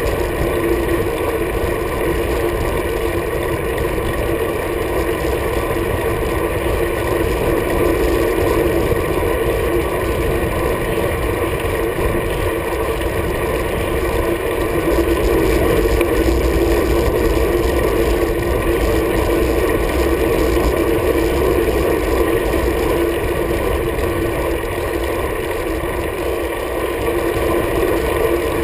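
Steady wind and road noise from a road bike ridden at speed, picked up by a camera mounted on the handlebars: a constant rushing rumble with a fixed droning hum and no break.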